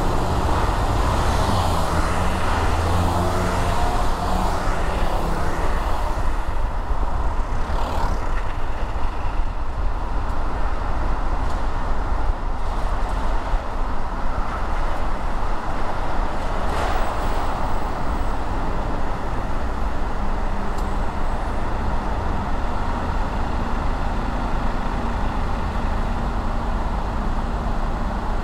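A car driving through city traffic, with steady road and engine noise. The engine's pitch rises over the first few seconds as it pulls away, then evens out.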